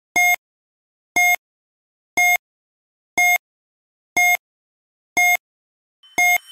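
Quiz countdown timer beeping once a second, seven short electronic beeps of one pitch, as the answer time runs down. A faint swelling sound begins under the last beep.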